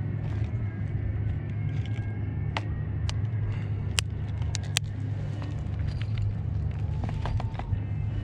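Short sharp clicks and rustles of a clear plastic package holding a three-hook fishing rig being handled, a handful in the middle and a few more near the end. Under them runs a steady low rumble, which is the loudest sound.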